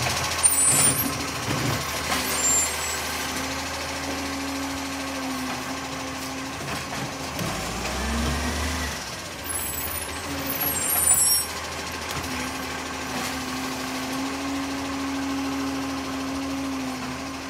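ACCO side-loader garbage truck's diesel engine running steadily as the truck works along the street, with a low thump about eight seconds in. Short high squeaks and hisses come near the start and again about ten seconds in.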